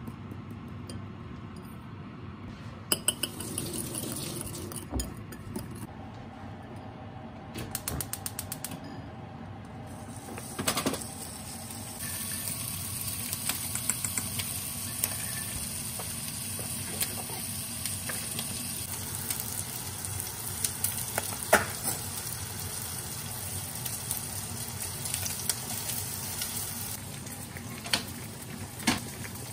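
Cooking preparation sounds: metal spoons clicking and knocking against glass mixing bowls, with a quick run of rapid clicks about eight seconds in. From about twelve seconds on there is a steady hiss while a pot of water heats on the stove.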